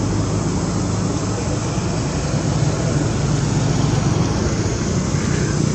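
Steady low rumbling drone with a faint hum underneath, holding an even level throughout.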